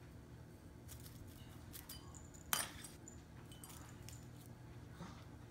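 Light metallic clinks and ticks from a cat playing with a wand toy on a hardwood floor, with one sharp tap about halfway through.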